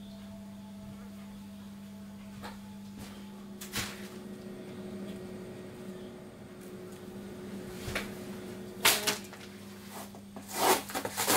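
Handling noises: a few isolated light knocks, then a burst of rubbing and knocking near the end as a cardboard box is handled, over a steady low hum.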